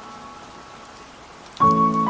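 Ambient music over a steady rain-like hiss. After a quiet stretch, a chord of several held tones comes in suddenly about one and a half seconds in.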